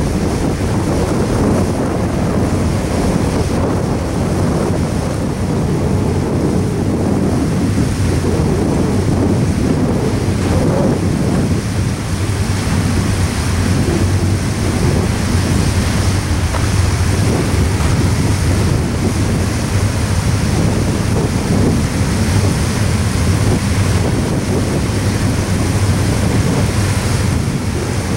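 Double-stack intermodal freight cars rolling past over a railway bridge: a steady rumble of wheels on rail, mixed with wind buffeting the microphone.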